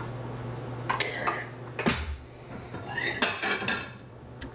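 Ceramic plates clinking and clattering together as plates are taken off a stack from the cupboard and set down on the counter, in a few short bursts of knocks with a little ringing.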